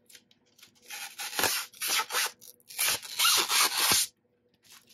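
Clear plastic wrap crinkling and rustling as it is peeled off an external hard drive, in several loud surges over about three seconds, stopping about four seconds in.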